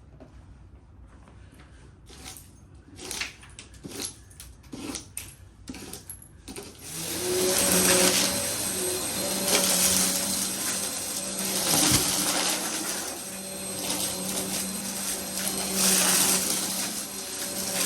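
A few sharp clicks and knocks, then about seven seconds in a vacuum cleaner switches on and runs with a steady motor hum, its noise swelling and easing every couple of seconds as it is pushed back and forth.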